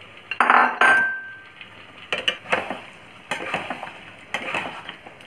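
A metal spoon clanking and scraping against a steel pan and bowl as marinated soya chunks are spooned into the masala. Two loud clanks come in the first second, one leaving a short ringing tone, then clusters of lighter clinks about once a second.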